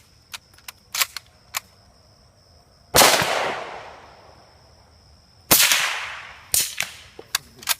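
Two loud gunshots about two and a half seconds apart, each followed by a long fading echo, with several quieter sharp pops before, between and after them.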